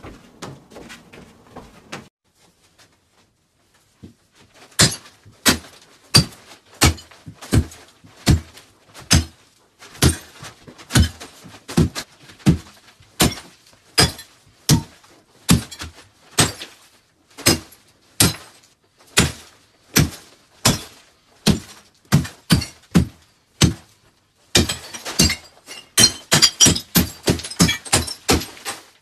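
Repeated hard blows smashing brittle pieces on a plastic tarp, about one and a half strikes a second, with a quick flurry of strikes near the end.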